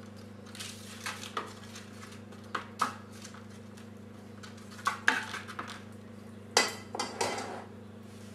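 A spoon knocking and scraping against a bowl of tomato sauce and a baking tin in four short clusters of clinks, as sauce is ladled and spread over the bottom of the tin.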